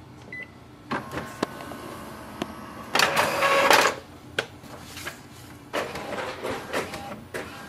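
Epson all-in-one inkjet printer starting a colour copy: a short beep, then its motors whirring and clicking as it scans and feeds paper, loudest about three seconds in, with the print head running near the end.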